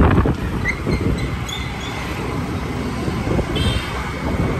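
Wind buffeting the phone's microphone, with road and engine noise, on a ride on a two-wheeler through town traffic.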